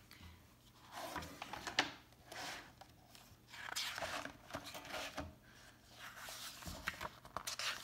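Pages of a hardcover picture book being turned and handled: soft paper swishes and rustles, with a few light knocks.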